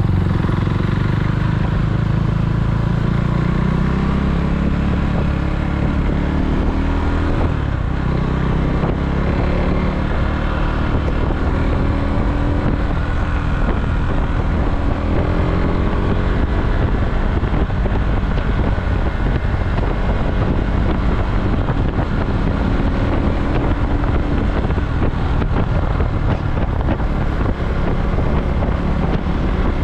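KTM Duke motorcycle engine running under way, its note rising as it accelerates over the first several seconds, then running on at speed, with wind noise on the microphone.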